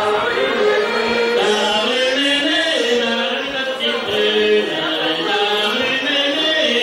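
Traditional Gallo-Breton folk music: a melody moving in long, steadily held notes.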